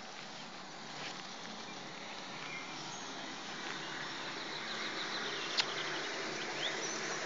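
Steady rush of running spring water, growing slightly louder, with a few short bird chirps and one sharp click about five and a half seconds in.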